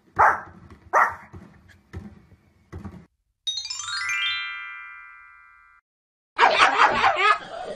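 A dog barks sharply a few times, about a second apart, then more faintly. A bright chiming sound effect follows, rising quickly and then ringing out and fading over about two seconds. Near the end a small dog breaks into a continuous run of excited, high-pitched whining and yipping.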